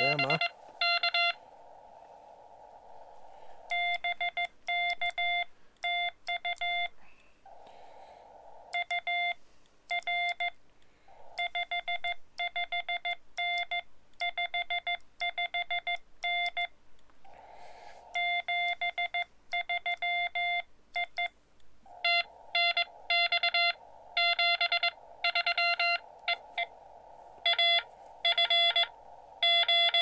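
Morse code (CW) from a Xiegu X-6100 ham transceiver's speaker: a single steady beep keyed on and off in quick dits and dahs, in runs of characters with short pauses between. A narrow band of receiver hiss fills the gaps between signals at some moments and drops out at others.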